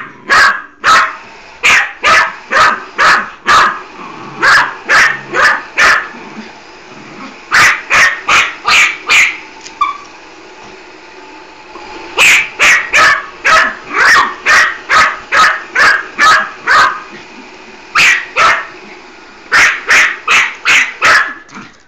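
Small Chorkie puppy barking at a running robot vacuum in quick runs of sharp, high barks, about two a second, with short pauses between runs.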